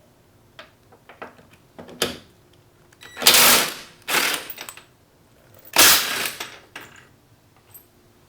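Impact wrench hammering on the bumper bolts, three short rattling bursts about a second apart near the middle, with a few light clicks of tool handling before them.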